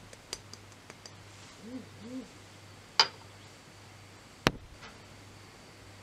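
Two sharp clinks of kitchenware on a stone countertop about three and four and a half seconds in, the first with a short glassy ring, under a steady low hum. Earlier, a bird gives a pair of soft, low hoots.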